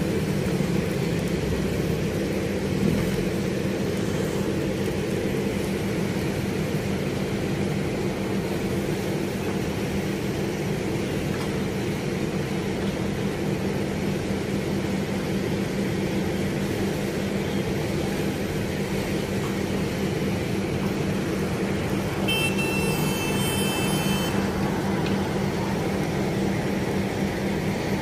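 Heavy construction machinery's diesel engine running steadily, a low even drone. A brief high-pitched tone sounds for about two seconds near the end.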